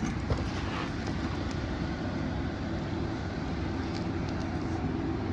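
Nissan Altima's engine idling steadily, a low even rumble, while the fresh oil change is checked for leaks.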